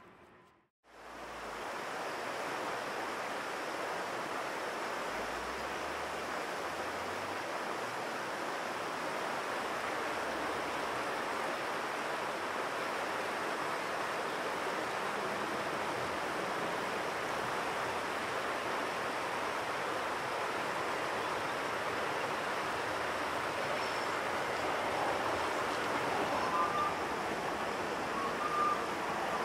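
River rapids rushing steadily over rocks, starting about a second in. A few faint short high tones come in near the end.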